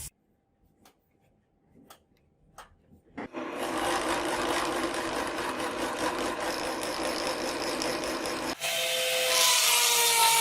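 Nearly silent for about three seconds apart from a few faint clicks, then a steady rough scraping of a tool working the steel blade. Near the end it changes to a brighter power-tool whine whose pitch slides down.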